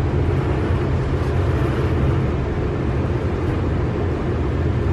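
Steady low background rumble with an even hiss above it, with no distinct knocks or clicks.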